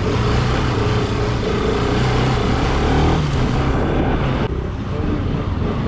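Motorcycle engine running while riding, with steady road and wind noise; the engine note rises a little about three seconds in.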